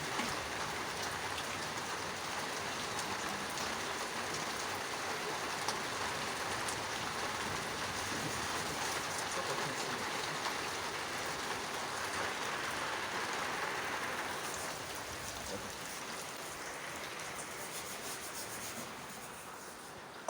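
Heavy rain falling steadily, with scattered sharp drop ticks, then fading gradually over the last several seconds.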